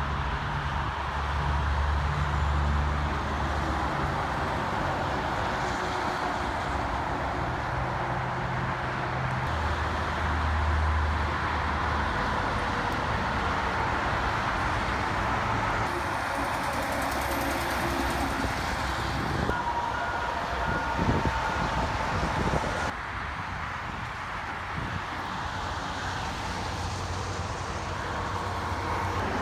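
Highway traffic: steady tyre and engine noise as cars and semi trucks pass, with the low drone of heavy diesel trucks swelling and fading twice in the first half.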